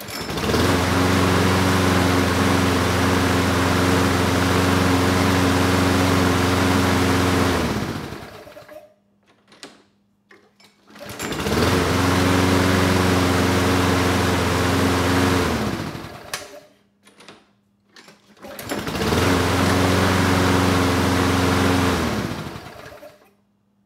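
Toro Recycler mower's Briggs & Stratton single-cylinder engine started three times, each time catching at once, running steadily for several seconds, then shut off and winding down. It now starts easily on the first pull because the new fuel cap lets the tank vent properly.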